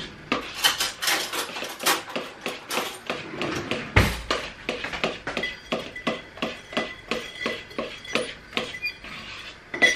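A spoon stirring a thick tiramisu cream in a large mixing bowl, clicking against the bowl in a steady run of about three knocks a second. One heavier knock comes about four seconds in.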